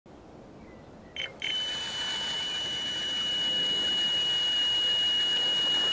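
Electronic carp bite alarm sounding one continuous high tone, starting about a second and a half in: the steady note that signals a run, a fish pulling line off the reel.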